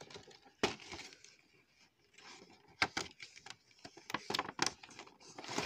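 A cardboard toy box and its plastic clamshell tray being handled and opened: scattered sharp taps and clicks, a quick cluster of them just after four seconds in, and a rustle near the end.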